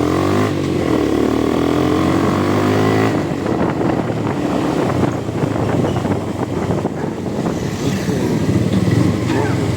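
Motorcycle engine accelerating on the road, its pitch rising over the first three seconds, then running on at a steadier pace with rougher, noisier sound.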